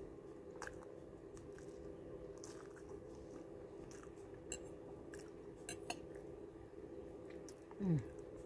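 A person chewing a mouthful of soft pancake, with faint wet mouth sounds and scattered light clicks, over a steady low hum. Near the end comes a short falling "mm"-like hum from the voice.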